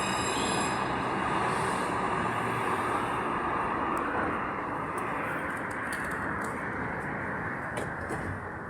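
Santiago Metro AS-02 train running along the line, a steady rolling rumble with a few faint clicks, slowly getting quieter.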